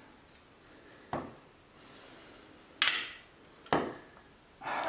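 Three short knocks from handling the amplifier chassis and tools, about a second in, near three seconds and near four seconds, with a brief faint scrape between them.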